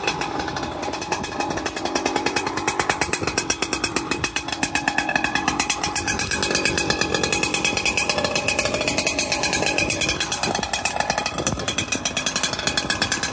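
Ported Husqvarna 395XP two-stroke chainsaw idling steadily.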